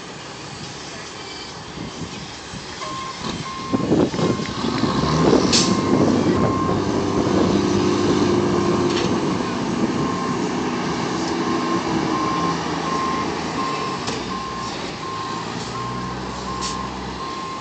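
Straight-piped Kenworth W900L diesel running and pulling harder from about three and a half seconds in as the rig manoeuvres at low speed. Its reversing alarm beeps about twice a second from about three seconds in, with a pause in the middle. There is a short hiss about five seconds in.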